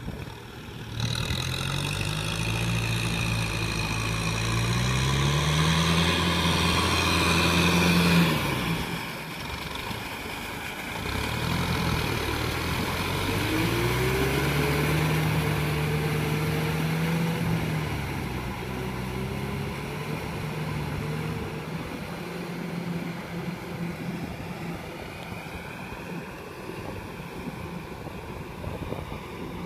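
Kubota M6040SU tractor's four-cylinder diesel engine working under load while tilling a flooded rice paddy. Its pitch climbs over the first several seconds, drops off abruptly, climbs again and holds. It then sinks and fades as the tractor moves away.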